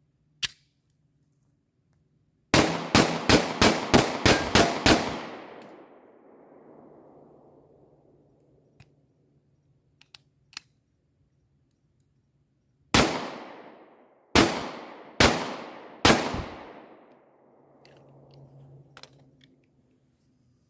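Taurus 9mm pistol firing: a fast string of about nine shots, then after a pause four more shots at a slower pace, each echoing and fading out.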